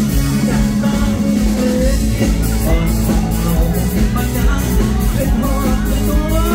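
Live band playing a Thai luk thung song, with a male lead voice singing the melody over bass and a drum kit; cymbals and drums keep a steady beat from about two seconds in.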